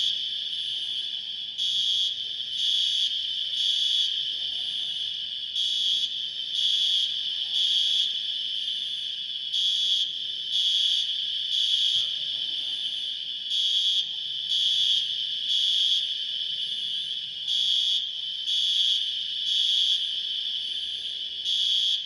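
Smoke alarm sounding over a steady high tone. Its beep repeats in groups of three about a second apart, with a short pause between groups: the temporal-three pattern that signals a fire evacuation.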